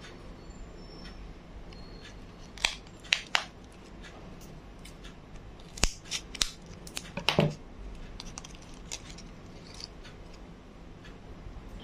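Scissors snipping through a plastic blister pack: sharp snips and crackles in two short clusters a few seconds apart, the second one the longer.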